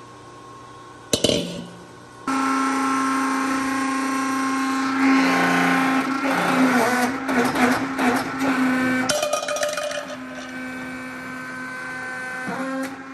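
Hydraulic press pressing a flat bottom into a domed steel wok blank: a sharp metallic knock about a second in, then the pump motor starts and runs with a steady hum. The hum grows louder and uneven for a few seconds in the middle as the die comes down on the steel, then settles quieter.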